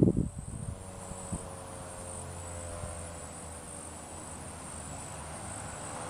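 ASC T-128 outdoor warning siren in the tail of its wind-down: a faint, low siren tone slowly sinking in pitch. A steady high chirring of insects runs underneath, and a short burst of noise sounds right at the start.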